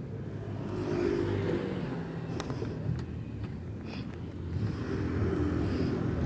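Yamaha Nmax 155 scooter's single-cylinder engine running, revving up about a second in and again near the end as the scooter moves off, with a few light clicks.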